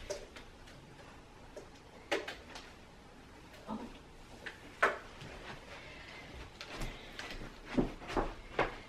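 Scattered knocks and light rustles of plastic bottles and cardboard boxes being handled, with the sharpest knock about five seconds in and a few quicker ones near the end.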